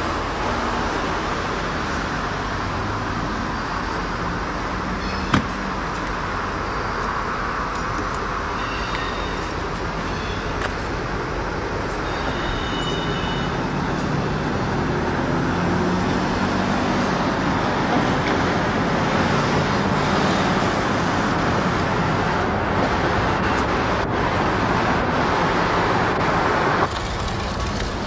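Steady rumble of vehicle traffic, getting a little louder from about halfway, with one sharp click about five seconds in.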